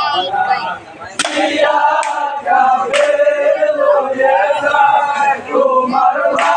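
A group of men chanting together in unison, a mourning chant, held on long sung notes. A few sharp strikes cut through it, about a second in, at three seconds and near the end.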